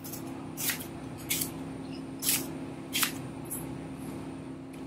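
Kitchen scissors snipping through the edge of a banana leaf: four short, sharp cuts in the first three seconds, over a steady low hum.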